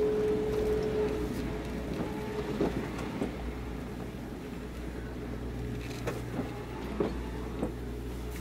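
Quayside harbour ambience with moored fishing boats: a steady low mechanical hum, with a held tone that fades out about a second in and a handful of short sharp knocks and clicks scattered through.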